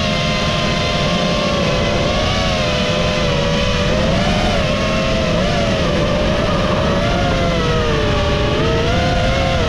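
FPV drone's electric motors and propellers whining steadily, the pitch wavering up and down with the throttle as it flies, over a low rumble of wind and prop wash on the onboard microphone.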